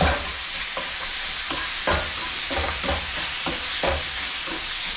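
Chopped ground beef and hatch chilies sizzling in a hot cast iron skillet, with a spatula scraping and pushing through the meat in repeated strokes, about two a second.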